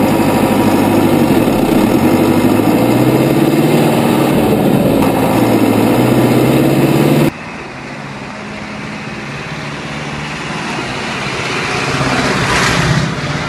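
Zetor Forterra 140 HSX tractor's diesel engine running under way, loud and close on board, its pitch rising and falling as it drives. About seven seconds in, the sound switches abruptly to the tractor heard from outside, growing louder as it comes near and peaking just before the end.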